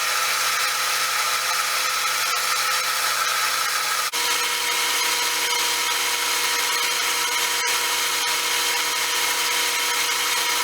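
A power tool running steadily while a small metal stud is shaped, a constant whine over a noisy hiss. About four seconds in the whine drops slightly in pitch.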